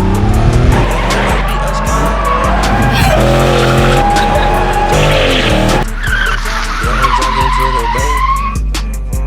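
Car tyre squeals and skidding with gliding, revving car sounds, laid as sound effects over a hip-hop beat with steady bass.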